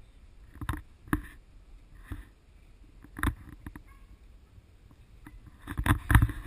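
Irregular knocks and creaks from an elephant's metal-framed riding seat and camera mount, jostled as the elephant walks; the loudest knocks come near the end.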